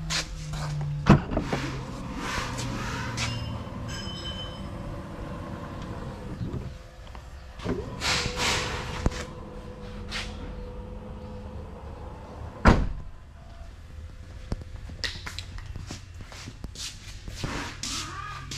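Scattered knocks and rustling clatter over a faint steady hum, with two sharp knocks standing out, one about a second in and one about two-thirds of the way through.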